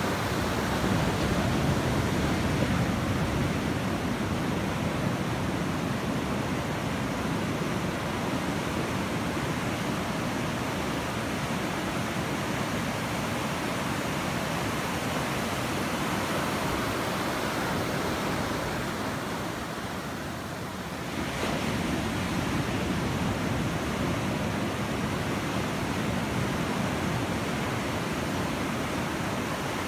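Ocean surf: small waves breaking and washing up the sand in a steady rush, easing for a moment about two-thirds of the way through before swelling again.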